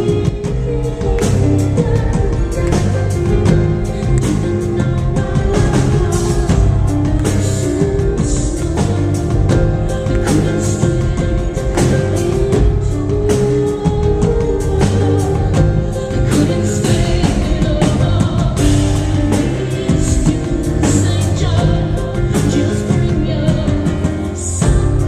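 A live rock band playing with drum kit, bass and singing, loud and continuous, recorded from the audience.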